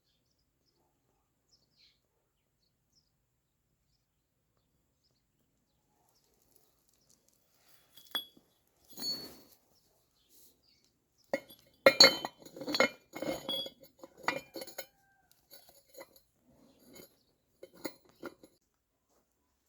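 Metal parts and tools clinking and knocking during a tractor axle repair. Several seconds of near silence come first, then a few clinks, a busy run of sharp knocks a little past the middle, and lighter clicks toward the end.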